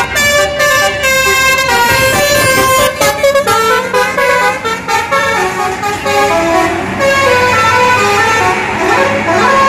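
Indonesian "telolet" multi-trumpet bus air horn playing a melody of stepped notes, several tones at once, with a run of quick staccato toots about two to three seconds in. A bus engine hums underneath.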